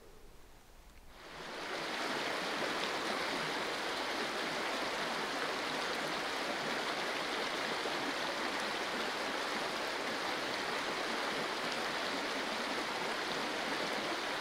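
Running water of a stream: a steady rush that fades in about a second in and then holds unchanged.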